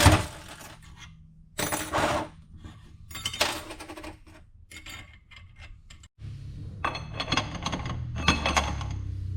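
Metal parts and tools clinking and clattering as they are handled, in short separate bursts, with a low steady hum under the last few seconds.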